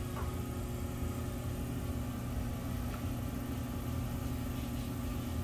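Electric potter's wheel motor running with a steady hum.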